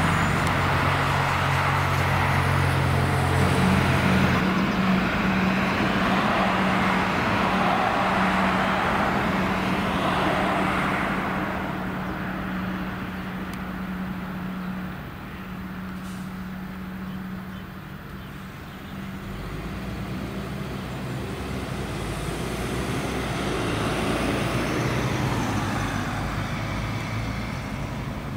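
Road traffic: a heavy truck's engine running with a steady low hum while other vehicles pass. The noise swells in the first ten seconds and again near the end.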